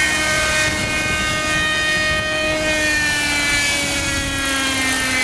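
Radio-controlled model helicopter flying low over the water, its engine and rotor giving a steady, high-pitched whine. The pitch eases down a little in the second half.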